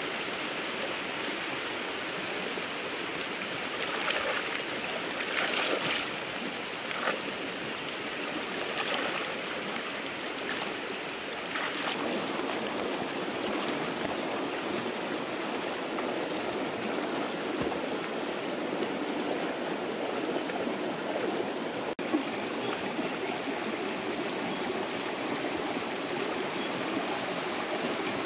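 Shallow rocky stream running steadily, with a few splashes of a person wading and working their hands through the water, the loudest about four to six seconds in.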